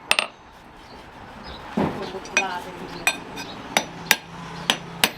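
Hammer striking metal: sharp, ringing clinks at uneven intervals, about seven blows.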